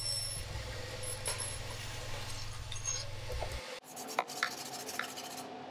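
A steady low hum for about three and a half seconds, then a hand rubbing paste wax onto a plywood sled, with a few light clicks.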